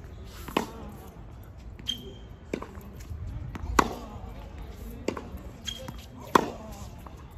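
Tennis ball struck by a racket in a baseline rally on a hard court: a sharp pop about every two and a half seconds, loudest about half a second in, near four seconds and past six seconds. Fainter ball bounces and the far player's hits fall between them.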